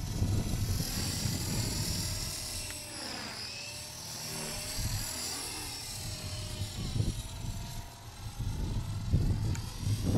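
Blade CP Pro RC helicopter with a Feigao brushless motor flying at a distance. Its high whine of motor and rotor rises and falls in pitch as it manoeuvres. Wind rumbles on the microphone, strongest near the start and the end.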